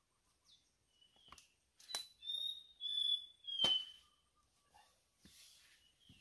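A few sharp knocks of things being handled, and over them a short bird call of three whistled notes, the last one sliding down.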